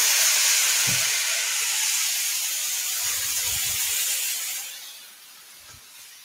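A smoking-hot cooking pan hissing and steaming as tap water is run into it, the hot metal quenching; the hiss dies down about four and a half seconds in.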